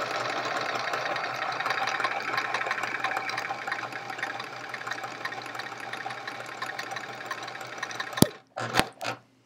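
Electric sewing machine running steadily as it stitches a seam, easing off a little about halfway, then stopping about 8 seconds in. A few sharp clicks follow near the end.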